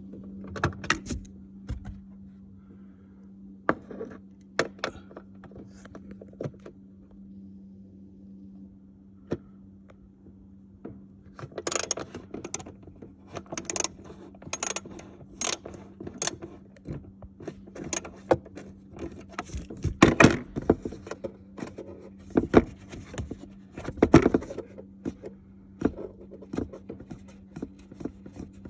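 Metal hand tools clicking and clinking in irregular bursts as the bolts holding the plastic cover over the car's battery housing are undone, busiest in the second half. A steady low hum runs underneath.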